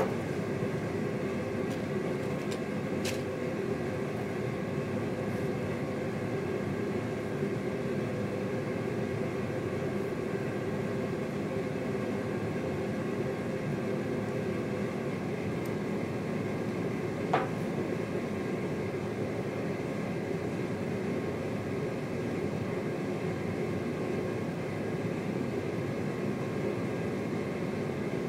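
A steady mechanical hum with a few held tones in it, unchanging throughout, with a faint click about three seconds in and a sharper click or tap a little past the middle.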